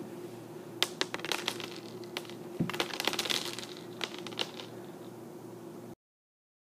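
Dry cereal pieces, sugary marshmallow cereal, tossed from a plastic container and scattering onto a wooden floor: a quick run of small clicks and rattles over a few seconds that stops suddenly near the end.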